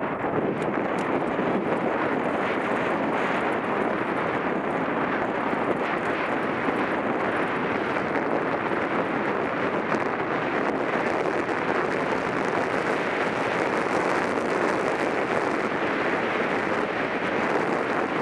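Steady wind rushing over a helmet-mounted camera's microphone as a mountain bike rolls at speed along a dirt singletrack, mixed with the tyres' rolling noise and light rattles from the bike.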